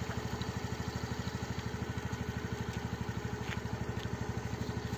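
Honda Activa scooter's small single-cylinder engine idling with a steady, rapid putter.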